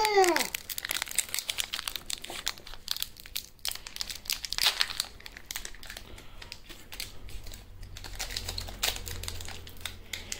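Foil wrapper of a Pokémon card booster pack crinkling in irregular bursts as it is handled and opened.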